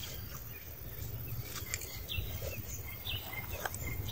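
Outdoor ambience: a steady low rumble with a few short bird chirps and some faint scattered clicks.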